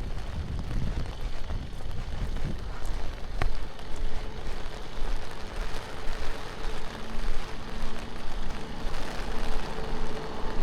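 Steady rushing water from the falls, with a motor vehicle's engine hum coming in about halfway through and growing louder.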